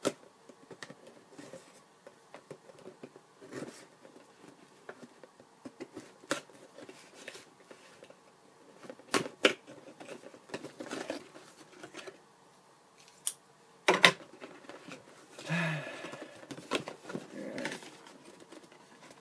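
Product packaging being handled and opened by hand: scattered sharp clicks and crinkling rustles, with a loud sharp knock about 14 seconds in and a stretch of rustling shortly after.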